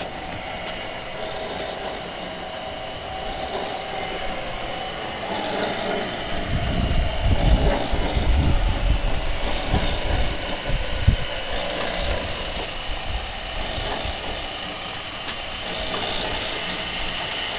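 Johnson Model J horizontal band saw running steadily just after being switched on, its motor and blade drive making an even hum. A few low thumps come in the middle.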